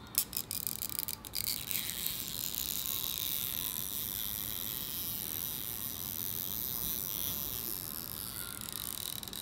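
Stretch-release adhesive strip being slowly pulled out from under an iPhone 7 battery: a steady high-pitched hiss-like crackle as the adhesive lets go, after a few clicks at the start. This is the sound of the strip releasing cleanly rather than breaking, a good sound.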